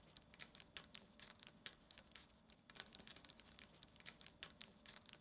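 Faint, irregular clicking and scratching: many small, quick ticks at uneven intervals, several a second.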